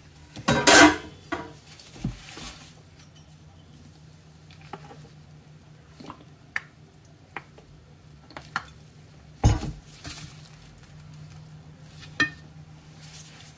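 Kitchen handling of a metal measuring spoon and a plastic squeeze bottle over a ceramic mixing bowl while oil is measured onto bread dough: scattered small clicks and clinks. Two louder knocks, one about a second in and one about two-thirds of the way through, over a faint steady low hum.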